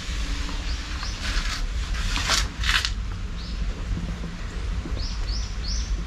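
Steady hiss and rumble of heavy rain, with small birds giving short, high chirps several times, three in quick succession near the end. A few louder rushes of noise come in the middle.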